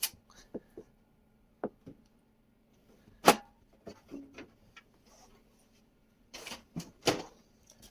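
Handling of a PC case's panel: scattered clicks and light knocks, with one sharp knock about three seconds in and a brief scrape and knock near the end.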